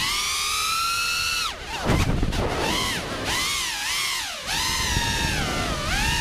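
GEPRC CineLog35 ducted cinewhoop's brushless motors and propellers whining in flight, heard on the drone's own camera, the pitch rising and falling with the throttle. About a second and a half in, the whine drops away under a brief rush of wind noise during a turn, then climbs back and keeps swinging up and down.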